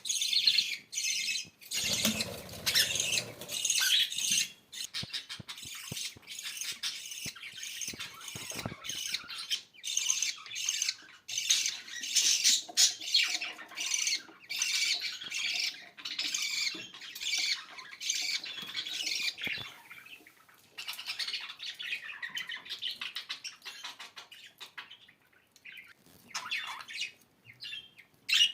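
Budgerigars chattering and warbling: a dense run of rapid high chirps, squawks and clicks, with a short lull about two thirds of the way in.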